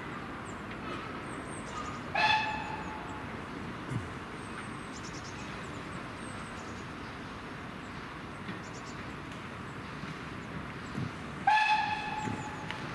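Steam whistle of BR Standard Class 4MT tank locomotive 80097, sounded twice as short single-note blasts of about a second each, roughly nine seconds apart.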